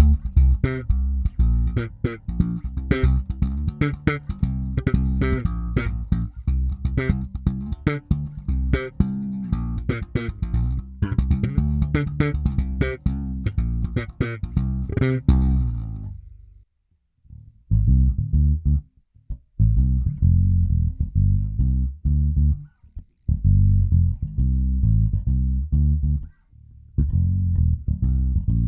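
Ibanez four-string electric bass through an active preamp, played slap style: a fast run of percussive slapped and popped notes with bright string clicks. After a short break about 17 s in, the playing resumes with duller notes that have much less treble.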